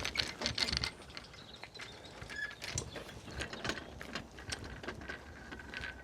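Irregular mechanical clicking and clattering, densest and loudest in the first second, then scattered single clicks.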